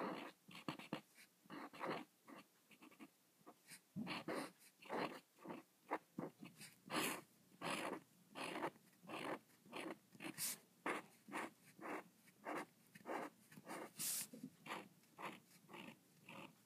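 Marker pen scratching across paper on a clipboard in short repeated strokes, about one or two a second, as lines and hatching are drawn.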